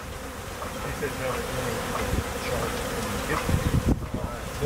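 A honeybee swarm buzzing, a steady dense hum of many bees close by as the clustered swarm is scooped up by hand.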